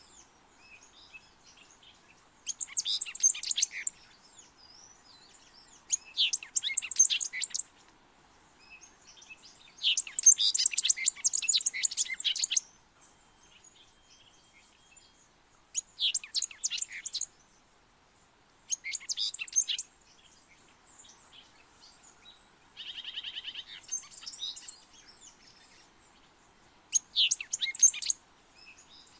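Euphonia ('fruterito picudo') song: about seven bursts of rapid, high chattering notes separated by pauses of a few seconds. About three quarters of the way through there is a different, buzzy note.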